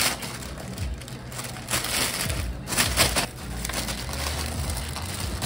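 Thin plastic carry bag crinkling and rustling as takeaway drink cups are slipped into it, in a few noisy bursts, loudest around the middle.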